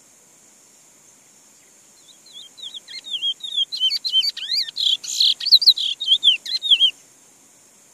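Caged picolet (chestnut-bellied seed finch) singing one fast phrase of warbled whistled notes sweeping up and down. It starts about two seconds in, grows louder, and stops abruptly about a second before the end.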